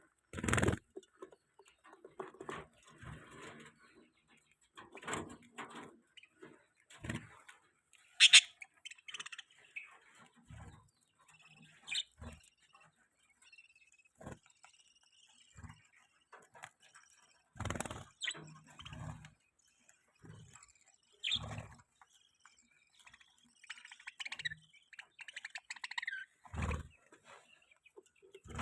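Budgies giving short, scattered chirps, broken by several knocks and thumps of handling in the aviary.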